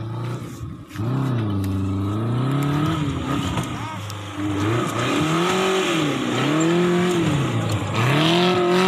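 Off-road 4x4's engine revving up and down over and over, each rise and fall lasting about a second, as the driver works the throttle climbing and cresting a steep dirt mound.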